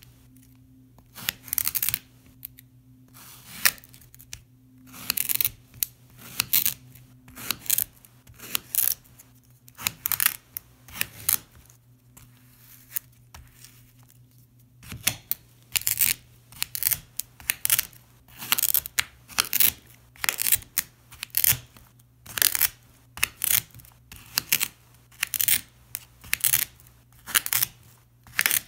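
Knife blade cutting through packed sand on a mirror: a long run of short, crisp crunches, one cut after another, with a quieter spell about halfway through. A faint steady low hum lies underneath.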